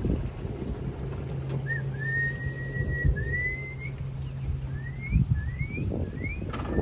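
A series of clear whistles: a long, nearly level whistle, then several short rising ones, over low boat and wind rumble with a steady low hum.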